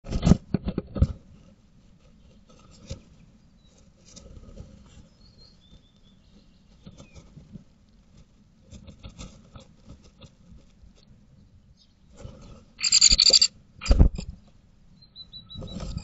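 Great tit moving about inside a wooden nest box: loud thumps and scrabbling as it comes in through the hole, then soft rustling and patter of its feet on the nest lining, with a few faint short chirps. A brief loud buzzy burst and a thump come near the end.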